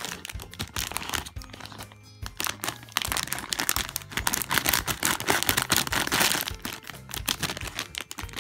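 Thin clear plastic packaging bag crinkling and crackling in irregular bursts as it is cut open and a squishy toy is pulled out, over background music.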